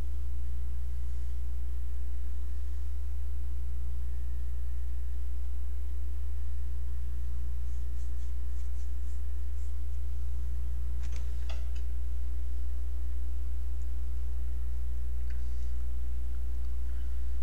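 Steady low electrical hum, mains hum in the recording chain, with a few faint clicks about eleven seconds in.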